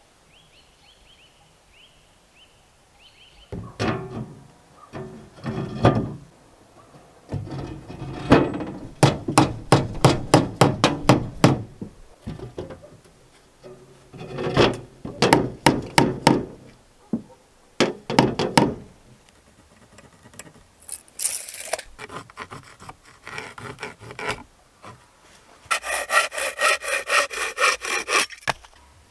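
Hand woodworking on boards: several bouts of quick, rhythmic back-and-forth strokes on wood. Near the end, a hand saw cuts fast through a wooden board.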